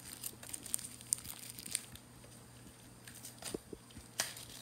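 Small plastic zip-lock bag crinkling, with scattered light clicks, as an LED diode is taken out of it, over a faint steady low hum.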